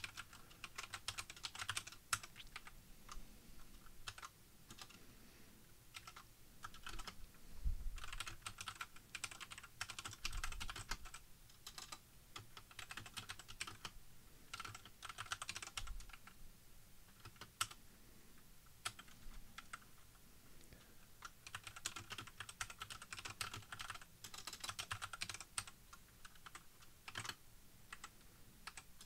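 Typing on a computer keyboard: runs of rapid keystrokes lasting a few seconds each, broken by short pauses.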